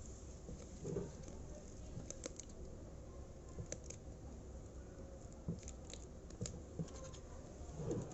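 Faint, scattered clicks, taps and scrapes of hands and tools working at a lithium battery pack while it is being opened up, over a low steady hum.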